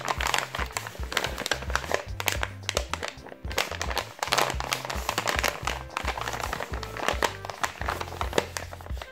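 Paper crinkling and rustling as hands squeeze and handle a hand-made paper surprise packet, over background music.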